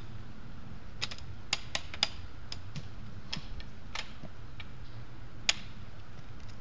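Trekking pole tips clicking on stone steps: about a dozen sharp, irregular taps, the loudest about five and a half seconds in.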